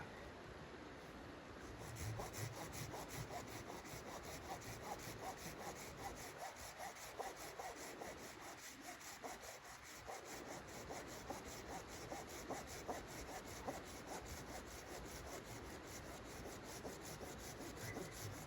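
Wood being sawn by hand, in quick, even back-and-forth strokes that start about two seconds in.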